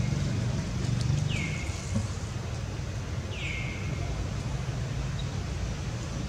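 A steady low mechanical hum, with two short high chirps that drop in pitch and then hold, about one and three and a half seconds in.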